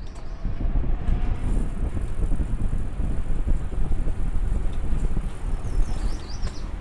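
Wind buffeting the microphone while riding along a trail: a gusty, uneven rumble that picks up about half a second in. A few faint high bird calls come in near the end.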